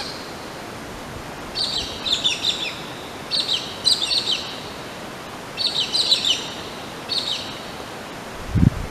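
Wild birds chirping in four short bursts of quick, high calls. A low thump comes near the end.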